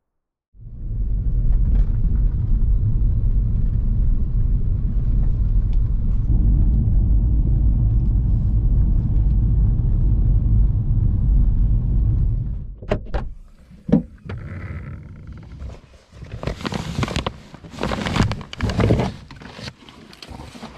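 Car driving along a rough single-track road, heard from inside the cabin as a steady low rumble. About twelve seconds in it stops abruptly and gives way to knocks, clunks and rustling as a backpack is handled at the car's open boot.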